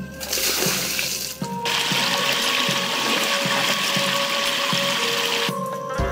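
Water rushing and splashing over a small rocky cascade in a stream, in two stretches with a short break about a second and a half in, over soft background music.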